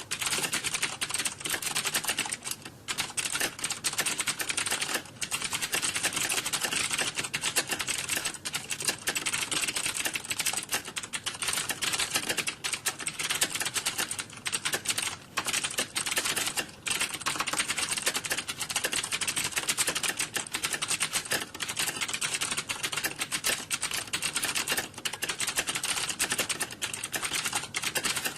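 Computer keyboard typing: fast, continuous key clatter with only a few brief pauses, the kind of noise heard from students typing in an exam hall.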